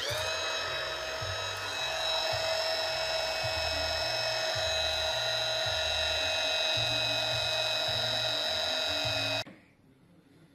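Small electric motor of a bubble machine whining steadily, rising briefly in pitch as it starts, then running evenly until it cuts off suddenly near the end.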